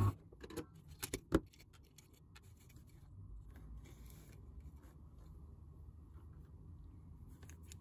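Small sharp clicks and taps of a circuit board and loose parts being handled on a workbench, the sharpest about a second and a half in, then only faint handling noise.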